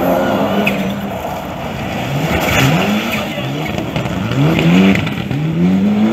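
Rally car engine revving hard as the car accelerates, its pitch climbing in several rising sweeps broken by gear changes.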